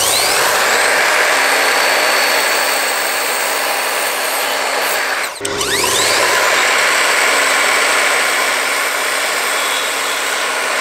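Evolution sliding mitre saw running and cutting wooden picture-frame moulding, its motor spinning up with a rising whine. About halfway through it dips briefly, then spins up again with another rising whine for a second cut.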